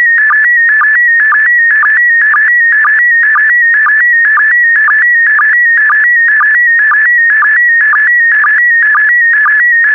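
Slow-scan TV (SSTV) signal in PD120 mode: a loud, steady, warbling electronic tone that drops to a short lower blip about twice a second. Each blip is a sync pulse starting the next pair of picture lines as the image is sent.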